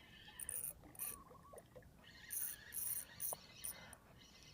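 Insects chirping in short, very high-pitched pulses that repeat irregularly, faint.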